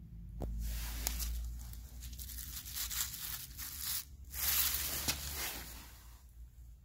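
Hissing noise in two long bursts with a short break between them.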